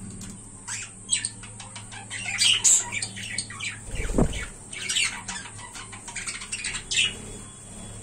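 Budgerigars chattering, a rapid run of short squawks and chirps, busiest through the middle. About four seconds in there is a single dull low thump.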